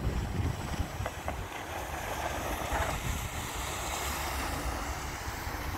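Wind buffeting the microphone with a low rumble, over a hiss of water from a cable-towed wakeboard carving and throwing spray, which swells about two to four seconds in.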